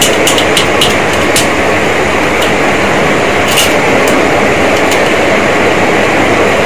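Steady, loud rushing background noise, with a few light clicks of a metal cutlet mould and steel plate being handled, mostly in the first second and once about three and a half seconds in.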